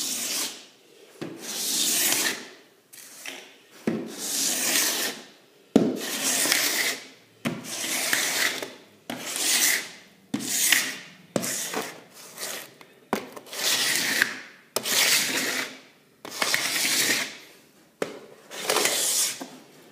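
Hand paint scraper dragged across wet hardwood floorboards in about a dozen repeated strokes, roughly one every second and a half, some starting with a sharp click as the blade meets the wood. It is shaving off old paint and finish softened by floor stripper.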